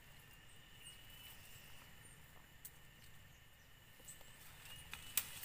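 Faint forest ambience: a steady insect-like tone with a few short high chirps, under light rustling and footfalls on dry ground and grass as a hiker starts down a steep slope. One sharp snap near the end.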